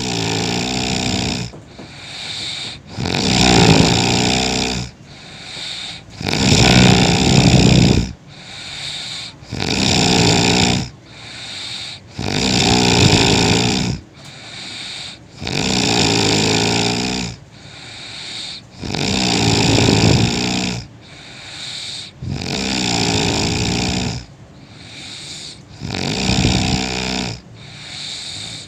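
Heavy, loud snoring in a steady rhythm: a long rasping snore about every three seconds, with a quieter breath between each.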